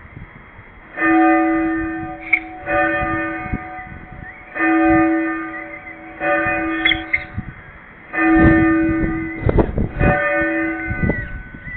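Church bells ringing loud and close, six strikes spaced every one and a half to two seconds, each ringing on until the next. A few dull knocks come among the later strikes.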